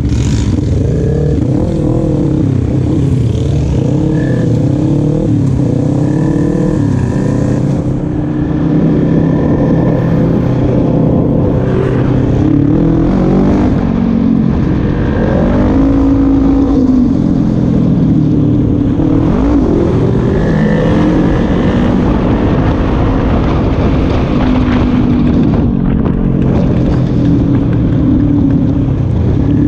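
Quad bike (ATV) engine running as it is ridden, its pitch rising and falling with the throttle, with wind buffeting the microphone.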